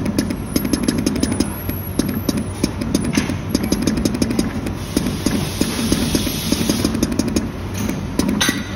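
Multi-colour PVC dispensing machine running as its nozzle gantry fills a patch mould: a steady mechanical running noise with dense, irregular rapid clicking over it.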